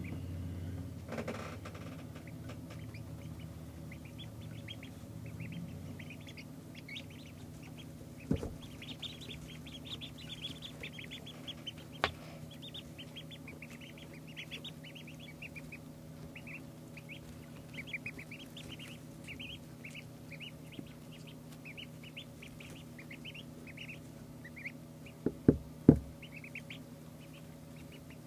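Two-day-old ducklings peeping: a steady run of short, high chirps from several birds, over a steady low hum. A few sharp knocks break in, the loudest two close together near the end.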